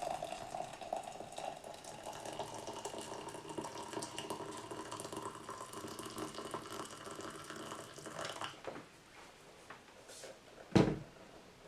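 Just-boiled water pouring steadily from an Instant Pot Zen electric kettle into a cup; the stream stops about eight and a half seconds in. A single sharp knock comes near the end.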